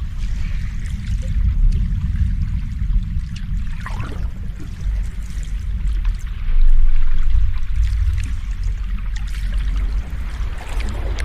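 Sea waves washing in, a continuous rushing with a deep rumble underneath and a swell that grows louder about six and a half seconds in.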